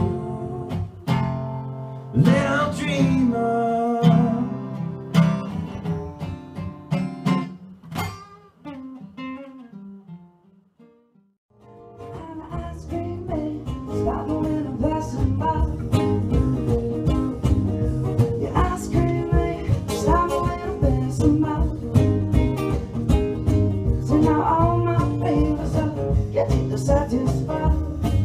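Acoustic guitar played live, ringing out and fading to near silence about ten seconds in; after a short pause, acoustic guitar strumming starts again, busier and steadier.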